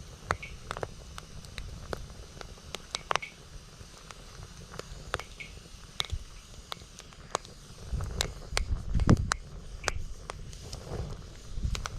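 Wood fire crackling, with irregular sharp pops and snaps. Gusts of strong wind buffet the microphone as a low rumble, heaviest about eight to nine and a half seconds in.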